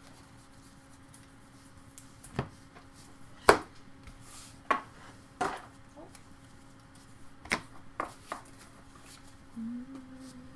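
Baseball trading cards being handled and sorted through in the hands: a series of sharp, separate snaps and taps as cards are flicked and squared in a stack, about seven in all, the loudest about a third of the way in, over a faint steady hum.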